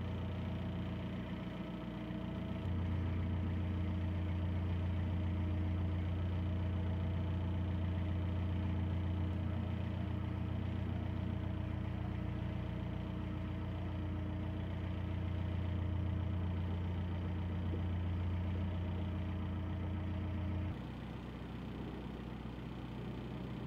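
A narrowboat's diesel engine running steadily while under way. The engine note gets louder about three seconds in and eases back about twenty-one seconds in.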